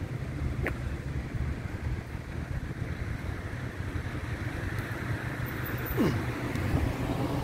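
Steady low rumble of wind buffeting a handheld microphone over street background noise, with a brief falling tone about six seconds in.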